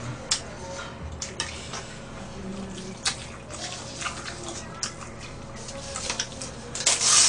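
Close-up eating sounds of jajangmyeon noodles: wet chewing and lip smacks, then a loud slurp of noodles near the end.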